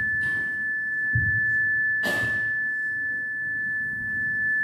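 Steady high-pitched whine at one unchanging pitch from the hall's microphone and sound system, with a few short rushes of noise and low rumbles over it.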